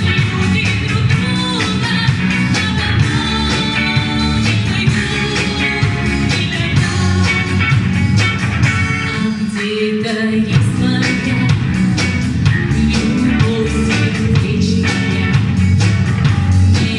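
A pop-rock song playing: singing over guitar and a steady drum beat.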